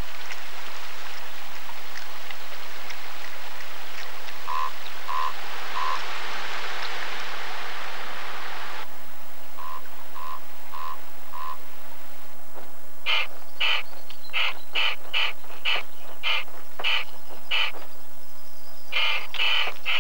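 Rushing water with a few short, high bird pips in groups of three and four. Then young common ravens calling: a run of harsh calls about two a second, and a few more near the end.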